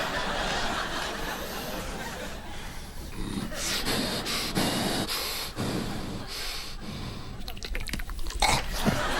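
A man making improvised vocal sound effects into a handheld microphone: short, irregular noisy mouth and breath sounds rather than words.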